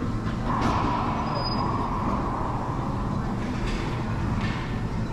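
Racquetball hit about half a second in, the sound ringing on in the enclosed court for a couple of seconds, then a couple of fainter ball knocks, over a steady low room rumble.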